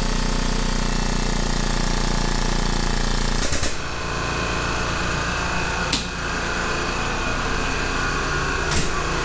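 Air-driven hydraulic pump of a tube bender running with a rapid, steady chatter while it bends steel tube. About three and a half seconds in it cuts off with a short burst, and a different steady mechanical running sound goes on underneath, broken by two sharp clicks.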